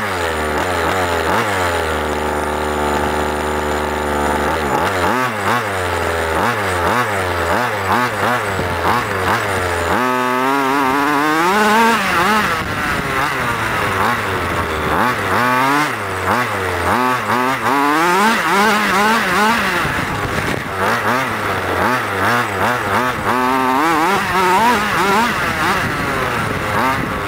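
Small two-stroke petrol engine of an HPI Baja 1/5-scale RC car, idling steadily at first, then revved up and down again and again as the car is driven.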